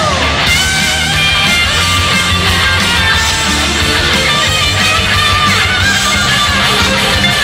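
Idol-pop song playing loud through the stage sound system: an instrumental stretch with strummed electric guitar over a steady bass line.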